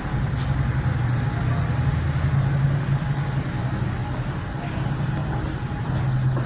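Steady low rumble of road traffic, with a vehicle engine drone that is strongest over the first three seconds and swells again near the end.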